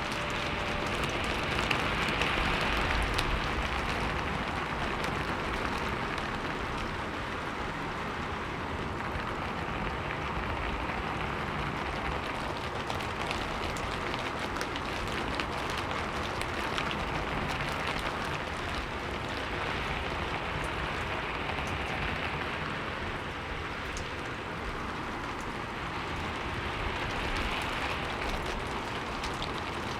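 Steady rain falling, an even hiss of drops that swells gently in loudness every several seconds.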